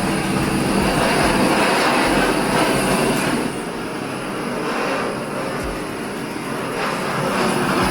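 A power tool running steadily, with music underneath.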